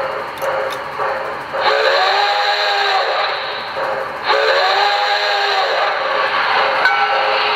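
Steam locomotive whistle sound effect from a QSI Maxx Traxx Heartland Steam sound panel, played through a speaker: two long blasts of a several-toned whistle, each bending up in pitch as it opens and down as it closes, over a steady steam hiss.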